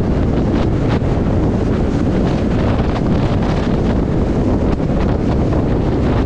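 Heavy wind noise buffeting the microphone of a motorcycle moving at road speed: a loud, steady low rush with irregular gusts.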